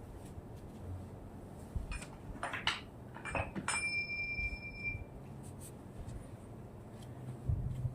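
A few light clicks of small hard objects being handled, then a clink that rings briefly at a high pitch and dies away.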